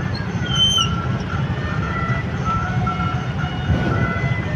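Motorbike engines idling together while stopped in traffic, a steady low rumble. A few short high chirps sound in the first second.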